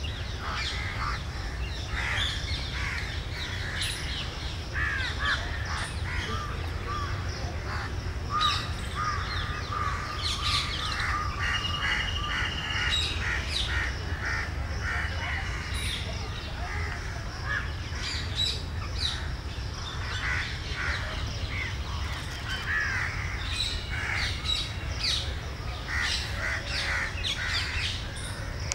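Background birdsong: many birds calling and chirping in short calls, one of them giving a quick run of repeated notes about ten seconds in, over a steady low rumble.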